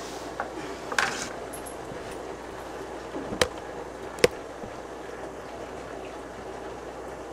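Steady bubbling and running noise of an aquarium's air-driven sponge filters, broken by three sharp clicks or knocks about one, three and a half and four seconds in.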